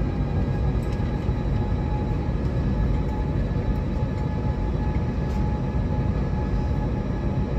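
Airbus A320 jet engines at taxi power heard inside the cabin: a steady low rumble with a faint steady whine above it.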